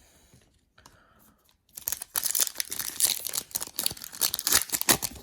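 A foil trading-card pack wrapper being torn open and crinkled, starting about two seconds in and going on as a dense crackle.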